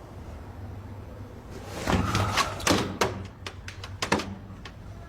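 A run of sharp knocks and bangs at uneven spacing, starting about two seconds in over a low hum.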